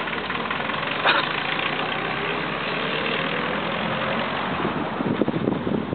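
An engine running steadily, its pitch rising slightly for a couple of seconds in the middle. Wind buffets the microphone near the end.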